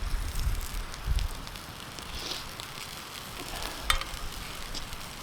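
Food sizzling in a frying pan over the camp fire, a steady hiss with scattered crackles and a sharp click about four seconds in.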